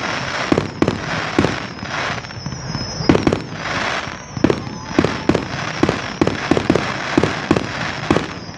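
Fireworks display going off: a fast, irregular string of sharp bangs, about two or three a second, over a continuous hissing crackle.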